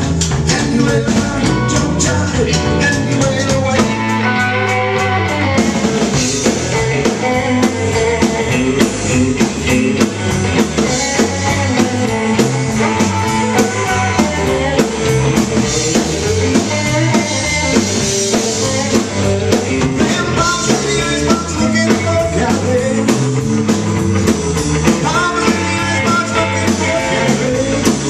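Live rock band playing: distorted electric guitars, bass and a drum kit keeping a steady beat, with a sung vocal over the top.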